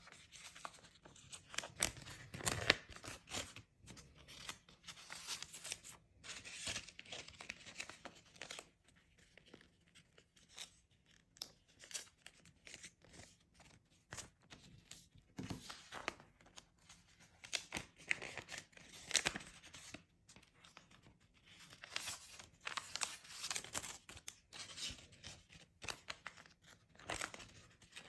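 Red paper ampao envelopes being handled and wrapped by hand: paper rustling in irregular bursts with small clicks and quiet gaps between them.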